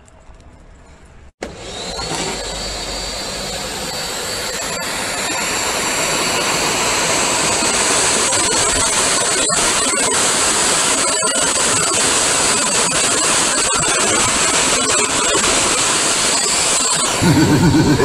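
Vacuum cleaner motor starting suddenly about a second and a half in and spinning up over several seconds into a steady, loud suction rush with a high whine. It runs on and is briefly louder near the end.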